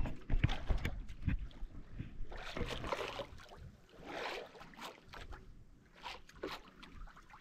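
Sea water splashing and sloshing against a small fishing boat's hull, with a few low knocks in the first second or so.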